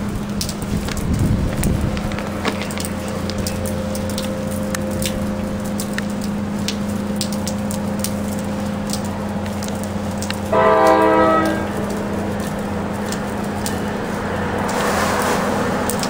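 An approaching train sounds its horn in one short blast of about a second, the loudest sound here, over a steady low hum and wind crackle on the microphone. Near the end the train's rumble grows as it comes closer.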